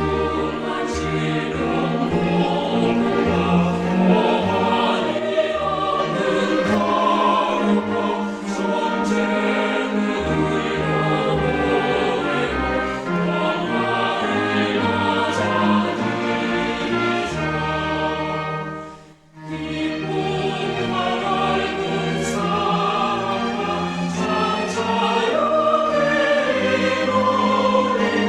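Choir singing a New Year hymn with instrumental accompaniment. The music breaks off for a moment about two-thirds of the way through, then resumes.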